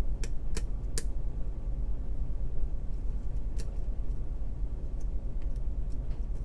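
Light clicks and ticks of a lock pick and tension wrench working the pins inside a pin-tumbler challenge lock, a few scattered taps spread over several seconds, over a steady low hum.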